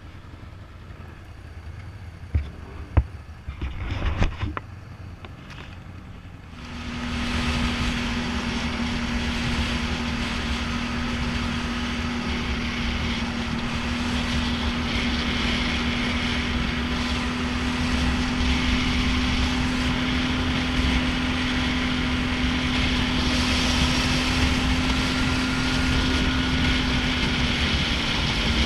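ATV engine ticking over quietly, with a few sharp knocks, then about six seconds in the quad pulls away and runs steadily at speed along a gravel road, with engine drone and tyre noise.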